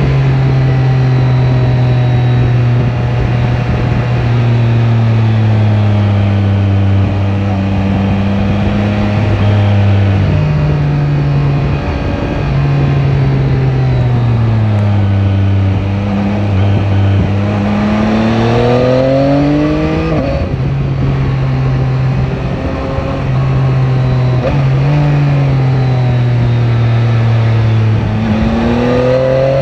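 Yamaha Tracer 9 GT's inline-three engine running under way, with wind noise. The engine note drops off the throttle and rises again under acceleration twice, with a sudden drop in pitch from a gear change about twenty seconds in.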